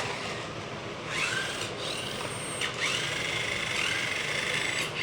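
Small electric motor of a toy RC drift car whirring, its whine rising and falling in pitch several times, with a steadier high whine through the second half.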